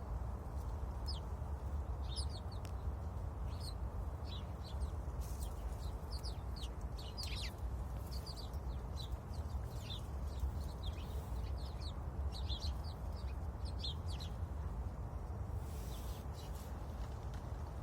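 Sparrow chirping: many short, quick chirps in irregular runs, over a steady low rumble.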